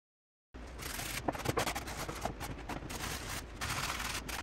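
Painted oak flag pieces being handled and rubbed on a workbench: a rough scraping hiss broken by a few light wooden clicks, starting suddenly about half a second in, over a steady low hum.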